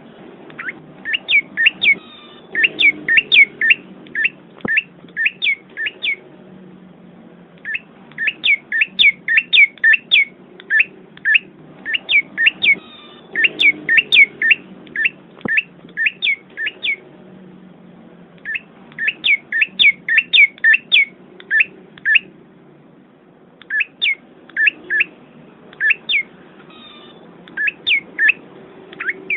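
A small forest songbird chirping in runs of sharp, quick chirps, about three a second, with short pauses between runs.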